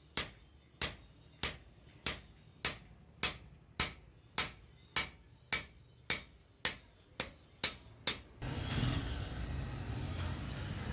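Hammer blows on a metal grass cutter machine blade, struck at an even pace of about two a second, each with a short high ring. Near the end the blows stop and a steady rushing noise takes over.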